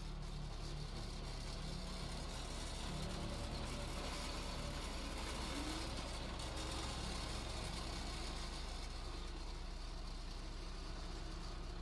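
Diesel engine of heavy construction machinery running steadily, a low even hum with a haze of mechanical noise over it.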